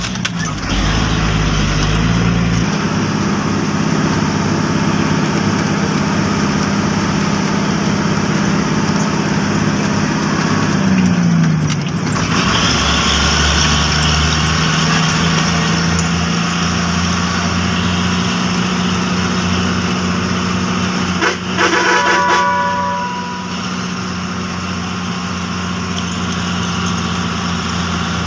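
Truck engine running under load, heard from inside the cab; its note shifts a couple of seconds in, drops about eleven seconds in, then holds steady. A brief pitched sound with several tones comes about 21 seconds in.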